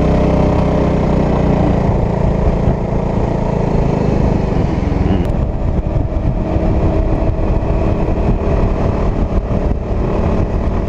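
Motor scooter engine running at road speed, mixed with heavy wind and road noise as picked up by a GoPro mounted on the rider's helmet.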